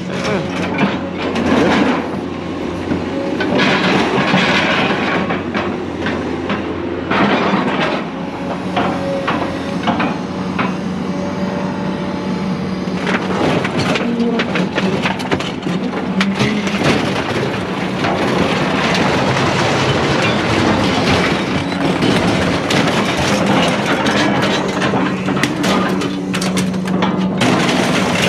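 Scrapyard grapple machine's engine running steadily while its claw grabs and lifts scrap metal out of a small trailer, with repeated metal clanks, knocks and scraping.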